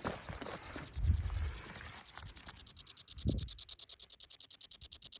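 Cicada calling: a rapid, even, high-pitched pulsing buzz that grows louder partway through. A couple of low thumps come about a second in and again a little after three seconds.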